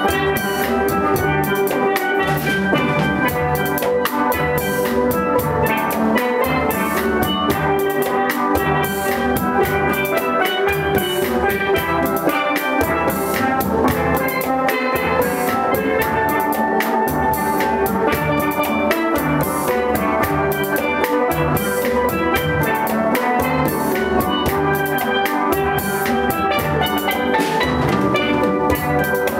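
A steel band playing together: several steel pans ringing out melody and chords, with a steady percussion beat of fine ticks underneath, at an even level throughout.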